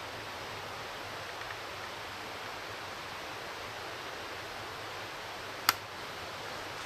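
Steady outdoor hiss, with a single sharp click about five and a half seconds in from the lock of a .50 calibre flintlock muzzleloader being worked by hand.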